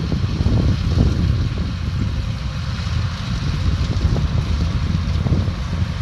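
Rice combine harvester's engine running steadily, a low rumble with wind buffeting the microphone.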